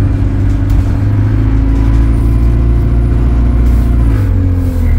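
Alexander Dennis Enviro200 single-deck bus engine running under way, heard from inside the passenger saloon, a steady deep drone with the engine note shifting about four seconds in.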